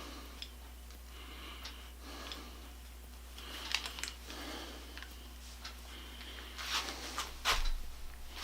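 Hand tools working metal hardware into a wooden tool box: short squeaky rasps repeating about once a second, then a few sharper clicks and knocks near the end, over a steady low hum.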